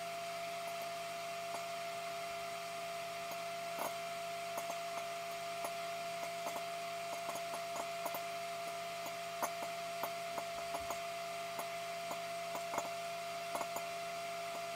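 Sharp microwave oven humming steadily on its highest setting while popcorn kernels pop inside a covered glass bowl, sharp pops coming at irregular intervals throughout.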